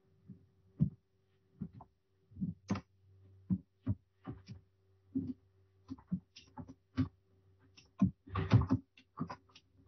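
Typing on a computer keyboard: irregular single key clicks, a few a second, with a quick run of strokes about eight seconds in.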